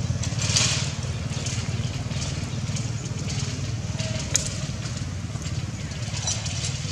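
Outdoor ambience: a steady low rumble with scattered faint rustles and crackles, and one sharp click about four seconds in.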